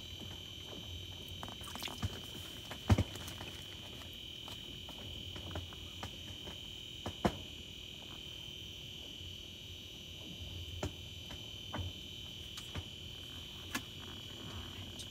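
A steady high-pitched electronic whine, with scattered small clicks and knocks of hands and fishing tackle as a crappie is unhooked. The sharpest clicks come about three seconds in and about seven seconds in.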